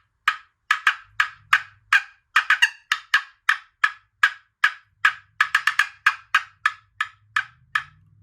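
Turkey box call played as a cut: the paddle is lifted off and struck against the box, giving a run of about thirty short, sharp notes, some in quick clusters, imitating a turkey's cutting.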